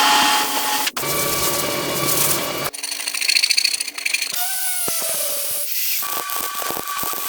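A quick run of power-tool sounds cut together, changing every one to two seconds: steady machine whines and hiss, one of them slowing with a falling tone in the middle.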